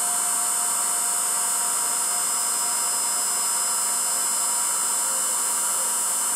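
1986 Emco F1 CNC milling machine running its program, the table traversing the cast iron workpiece under the spot drill to the next hole position. A steady high machine whine and hum, with a mid-pitched tone that dies away about four seconds in.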